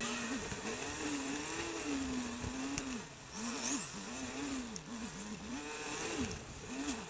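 Royal Enfield Bullet's single-cylinder engine heard from the saddle, its note rising and falling again and again as the throttle is opened and closed, over tyre hiss on a wet road.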